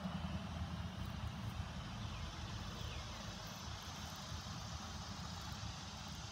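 Steady outdoor background noise: a low, unsteady rumble under an even hiss, with no distinct events.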